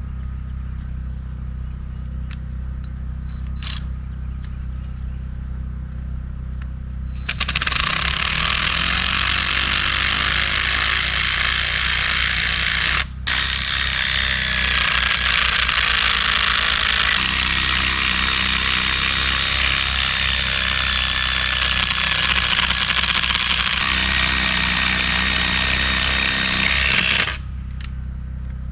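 A power tool runs in two long stretches: one starting about seven seconds in, a split-second stop, then a longer run that cuts off near the end. A steady low hum sits underneath throughout.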